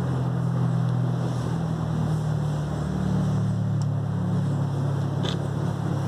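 A motor running steadily with a low, even hum, with two faint short high-pitched sounds about four and five seconds in.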